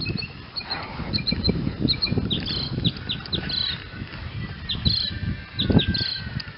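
Small birds chirping repeatedly in short, high calls over a low, uneven rumble, with a single thump about six seconds in.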